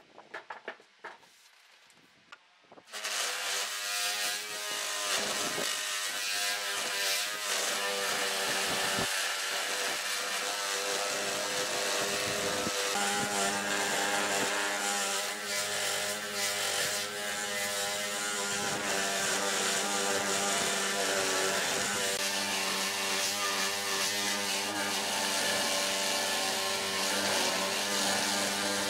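Power tool cutting wood, starting about three seconds in after a few light knocks and running continuously, its pitch shifting as it works.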